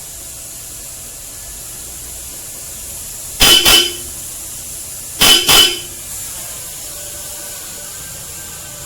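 Ford EcoSport's stock horn and an aftermarket Bosch Europa horn wired to sound together, honked twice as quick double beeps, a little under two seconds apart.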